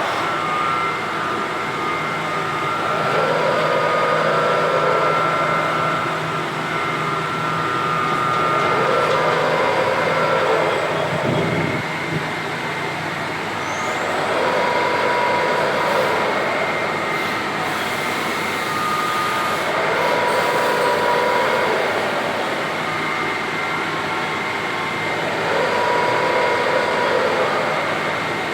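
Heckert CWK 400 D horizontal machining centre running: a steady mechanical hum with a thin high whine, swelling in regular cycles about every five to six seconds.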